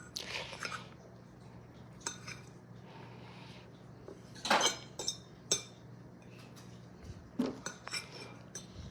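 Dishes and cutlery clinking and clattering as food is dished up, in scattered knocks with the loudest clatter about halfway through. A steady low hum underneath stops about seven seconds in.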